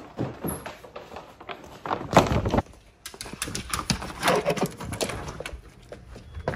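Paper grocery bags rustling and knocking as they are carried, then a dog moving about right at the microphone, with a run of sharp clicks.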